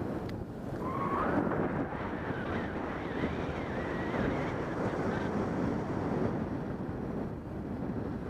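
Steady rushing of airflow buffeting the microphone of a camera carried by a paraglider pilot in flight.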